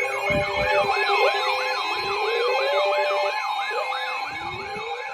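Electronic siren in a fast yelp, its pitch rising and falling about three to four times a second, with slower rising wail tones and steady tones underneath.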